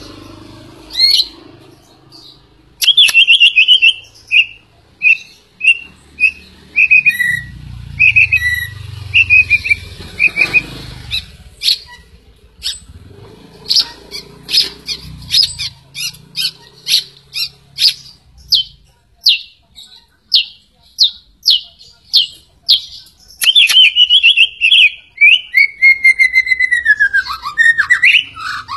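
White-rumped shama (murai batu) singing: clear whistled phrases, a run of short repeated notes at about two to three a second in the middle, then fuller warbled phrases with falling glides near the end.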